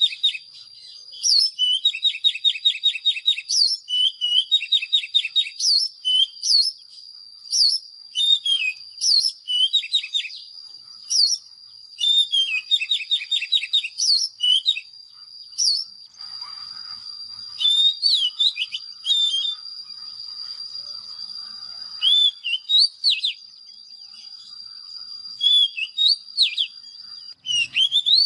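Oriental magpie-robin singing: a long run of short, varied whistled phrases and rapid trills, with quick rising and falling notes and brief pauses between phrases. A thin steady high tone runs beneath them.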